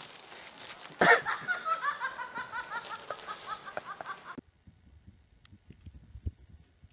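A person laughing in a fast run of short high-pitched 'ha' sounds, about four or five a second, starting about a second in and lasting some three seconds. It cuts off suddenly, leaving only faint scattered taps.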